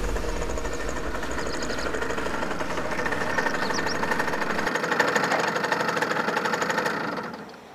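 Simson moped's small two-stroke engine running with a fast, even beat as the bike rolls up and stops, then switched off near the end.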